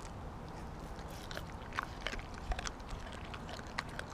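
Siberian husky chewing and biting into a whole raw mackerel: irregular wet crunches and clicks of teeth on fish, several sharper ones through the middle and near the end.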